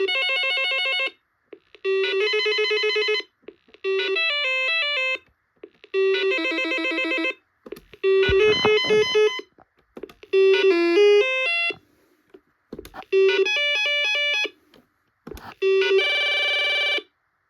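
Dex CT230C corded telephone playing its ringtones one after another: eight short electronic ring melodies of about a second each, each a different tune and each opening with a short low beep. A few faint clicks fall in the gaps between them.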